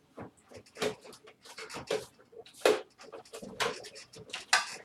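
Irregular clicks, knocks and scrapes of computer parts being handled and pushed into place in a desktop case.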